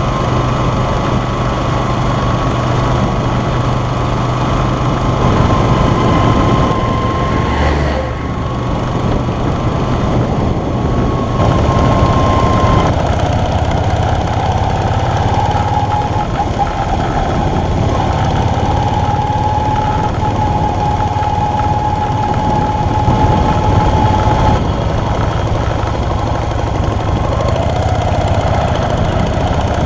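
Yamaha Virago XV250's small air-cooled V-twin engine running steadily while riding. A thin whine sits above the engine note; it drops to a lower pitch about a third of the way through and glides up again near the end. The sound dips briefly around eight seconds in.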